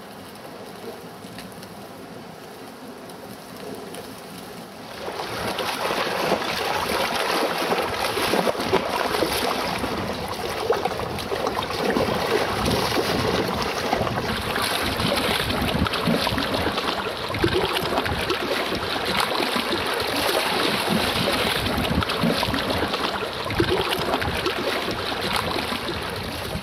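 Wind buffeting the microphone over choppy lake water with waves splashing. It starts suddenly about five seconds in, after a quieter stretch of soft outdoor background, and stays loud and gusty from then on.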